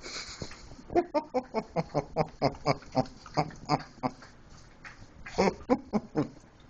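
Small white dog giving a fast run of short, pitched yips, about four a second, then three more near the end, begging for peanut butter.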